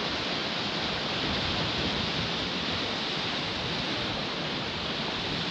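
Small waves breaking and washing up a sandy beach, a steady hiss of surf.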